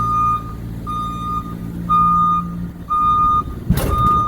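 Motion alarm on an engine-driven work lift beeping about once a second with a steady tone as the lift travels, over the engine running. A loud clattering knock comes near the end.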